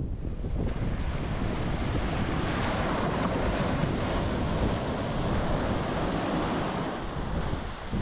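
Ocean surf breaking and washing up a sandy shore, a continuous rush of foaming water that swells around the middle as a wave crashes in close and eases a little near the end.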